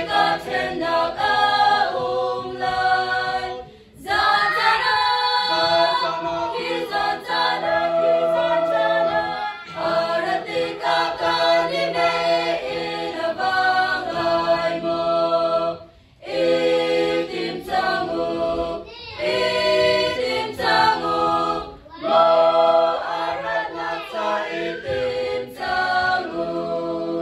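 Women's choir singing a hymn a cappella, in phrases with short breaks for breath about four seconds in, at about sixteen seconds and at about twenty-two seconds.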